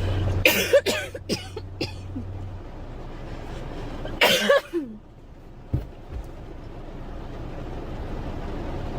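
A girl coughing: a quick run of about five coughs about half a second in, then a second bout of two coughs just after four seconds.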